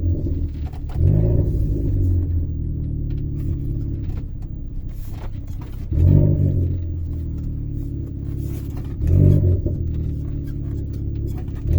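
Renault Clio RS 1.6 turbocharged four-cylinder with a downpipe exhaust, running and revved in three short, sudden bursts, about a second, six seconds and nine seconds in, each settling back to a steady drone.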